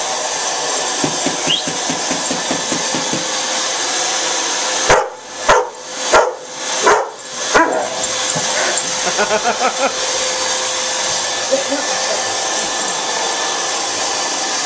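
A vacuum cleaner runs steadily while a chocolate Labrador barks at its wand. There are five sharp barks about two-thirds of a second apart, starting about five seconds in.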